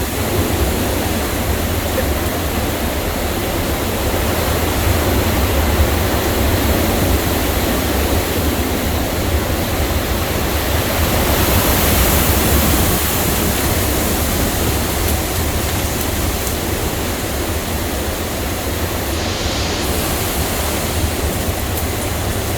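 Category 4 hurricane wind gusting hard, a steady rushing noise with heavy low rumble from the wind buffeting the microphone, swelling slightly about halfway through.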